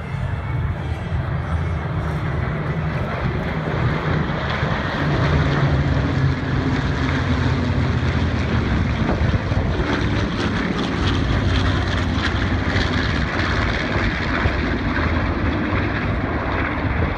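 A large formation of vintage piston-engined propeller aircraft flying past: a dense, steady drone of many engines together that swells a few seconds in and then stays loud.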